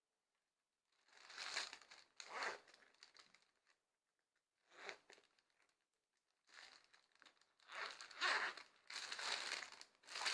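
Faint crinkling and rustling of packaging being handled, in several short bursts, with the longest stretch near the end.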